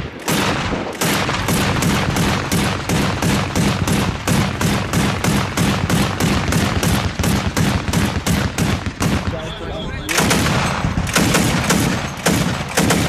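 Automatic gunfire: a gun firing a long, steady string of shots at about three or four a second. It breaks off briefly about nine seconds in, then fires again and stops just before the end.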